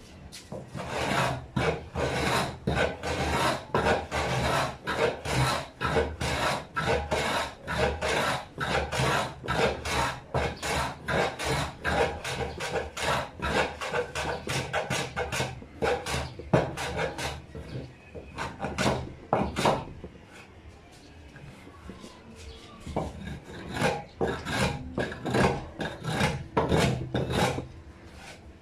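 Hand tool scraping along the edge of a wooden speaker box to round off the sharp corner, in quick repeated strokes, about two a second, with a short pause past the middle.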